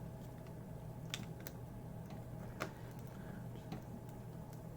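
A few sharp clicks of metal tweezers prying up a small plastic piece on an iPhone 11 screen, over a steady low hum.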